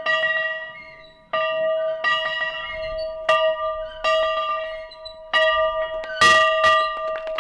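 An old school bell ringing, struck over and over at an uneven pace of about once a second, each stroke ringing on into the next. One stroke about six seconds in is a louder clang.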